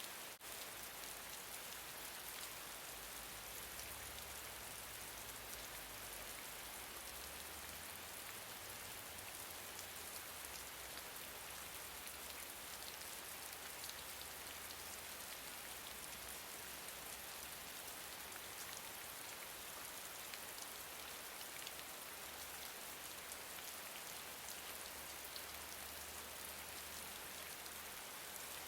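Steady gentle rain falling: an even hiss of many small drops, with scattered sharper drop ticks.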